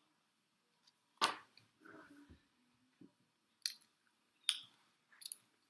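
Close-miked chewing with wet mouth smacks. One sharp smack comes about a second in, then softer chewing, then three more crisp smacks a little under a second apart.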